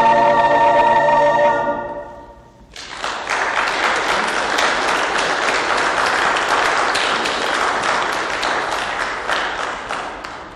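A church choir holds a final chord that dies away about two seconds in; then a congregation applauds, a dense patter of clapping that carries on to near the end and thins out as it stops.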